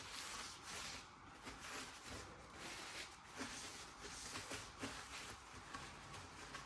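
Paper tissue being wiped over a steel wheel: a series of soft, uneven rubbing swishes.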